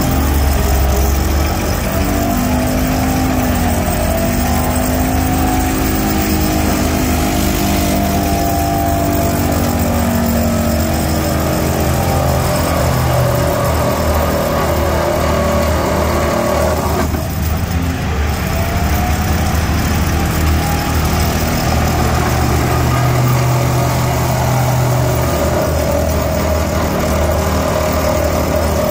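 Excavator-mounted vibratory pile hammer running steadily as it drives a steel sheet pile, a loud constant drone with a low hum, mixed with the excavator's engine running under load.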